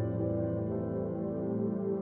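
Ambient background music: long held chords with no beat.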